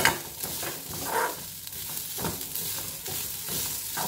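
A metal spoon stirs and scrapes grated coconut, shallots, garlic and curry leaves around a metal kadai as they roast in coconut oil, for a roasted-coconut curry paste. There is a light sizzle, and the spoon knocks against the pan about once a second, hardest at the very start.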